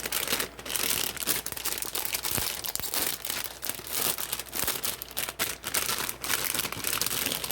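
Plastic packaging crinkling and rustling as the bagged plastic runners of a model kit are handled and taken from the box, with many small crackles and clicks.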